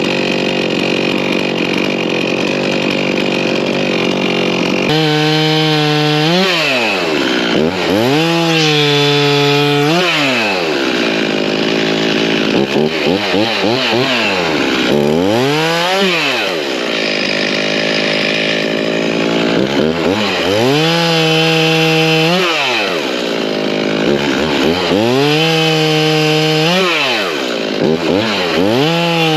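Gas chainsaw running hard while cutting tree branches. It holds steady at high revs for the first few seconds, then its engine pitch repeatedly sags and climbs again, every two to four seconds, as the saw works through the wood.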